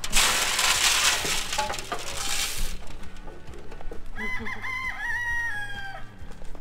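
Dry goat feed pouring from a plastic scoop into a trough, a loud rattling hiss for the first two and a half seconds. About four seconds in, a rooster crows once, a call of several stepped notes ending in a long falling note.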